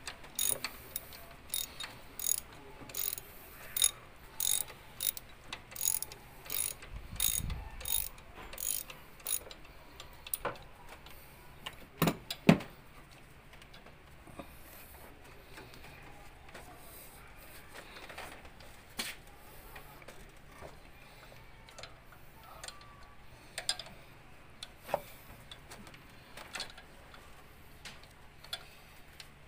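Ratchet wrench clicking in repeated strokes, about two a second, as it backs off the alternator's adjusting bolt to slacken belt tension so the new, tight serpentine belt can be fitted. A couple of louder knocks follow about twelve seconds in, then only occasional clicks.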